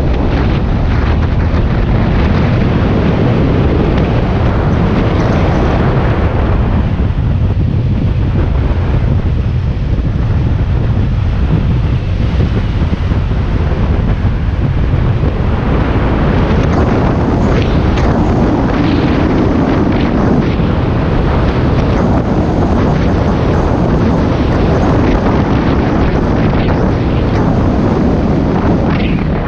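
Wind buffeting the microphone of a camera mounted on a moving BMW F800 motorcycle, loud and unsteady, with the bike's engine and road noise underneath.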